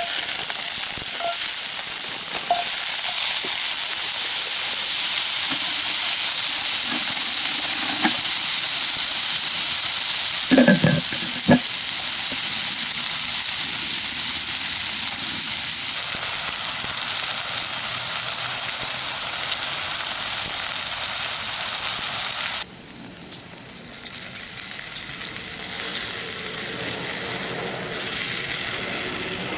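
Food frying in a pan over a campfire, with a loud steady sizzle and a couple of short knocks in the middle. About three-quarters of the way through, the sizzle drops off sharply and carries on much softer.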